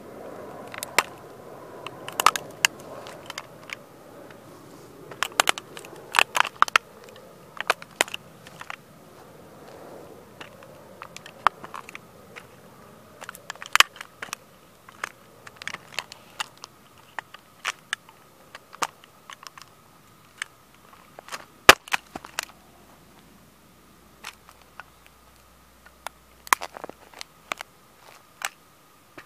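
A 1:18 scale model toy car cracking and snapping under sneaker soles as it is stomped and trampled: irregular sharp cracks and crunches, in clusters, with the loudest snap a little past the middle.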